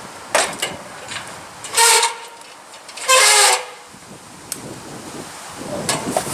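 Two short horn-like honks, the second a little longer, with a few light clicks before and after.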